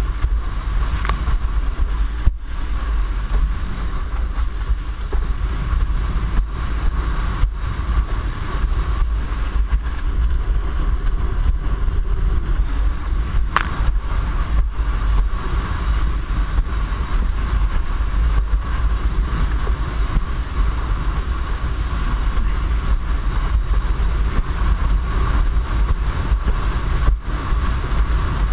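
Wind buffeting a board-mounted action camera's microphone over the rush of water under a windsurf board under way: a steady, loud, deep rumble.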